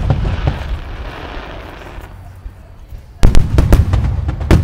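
Aerial firework shells bursting: the crackle of burning stars fades over the first two seconds, then a rapid volley of loud bangs starts a little past three seconds in.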